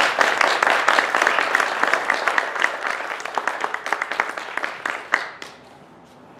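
Audience applause, dense at first, thinning into scattered claps and dying away about five and a half seconds in.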